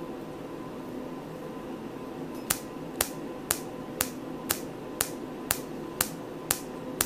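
Erbium-YAG laser handpiece firing pulses onto skin, a sharp snap twice a second starting about two and a half seconds in, over a steady hum: each pulse ablates a thin layer of epidermis to peel away a pigment spot.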